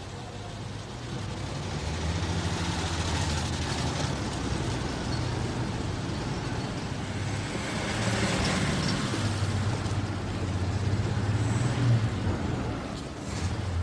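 Old staff cars driving slowly across a cobbled courtyard, their engines running low and steady under a hiss of tyre noise. The sound swells about two seconds in and again near eight seconds, and a couple of sharp clicks come near the end.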